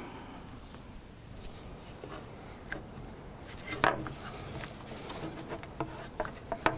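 Gloved hands working on a plastic prop part: scattered light taps and rubbing sounds, with a louder knock about four seconds in.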